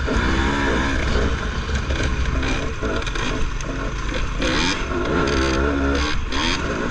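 Dirt bike engine revving up and down in quick rises and falls as it is ridden, over a steady low rumble, with a few short clatters in the second half.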